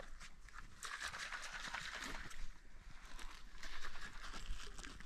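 Crunching and scuffing in snow, from footsteps and shifting gear, heard as a run of irregular crackles over a hissy background.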